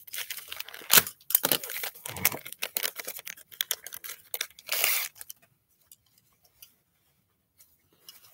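Paper and plastic packaging being torn open and crinkled by hand as a scarf is unwrapped: irregular rustling and ripping, with a sharp click about a second in. It dies away to near quiet after about five seconds.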